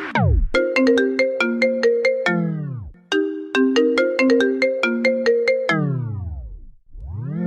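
Electronic dance music playing as a workout track: a stepped synth melody over sharp beats. Three times the whole track slides down in pitch and fades out, and near the end it slides back up into the beat.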